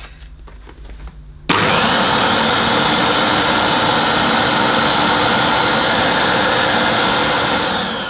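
Vorwerk VK121 upright vacuum cleaner with its ET340 power brush head switched on about a second and a half in, running steadily, then switched off near the end, its pitch falling as it winds down. The motor sounds good; the owner puts the trouble down to the power head, which needs new brushes.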